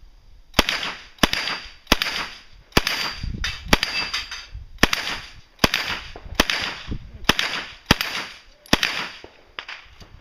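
A firearm firing about a dozen single shots at a steady, unhurried pace, roughly one shot every 0.6 to 0.9 seconds, at a steel plate rack. Each shot is sharp and trails off in a short echo.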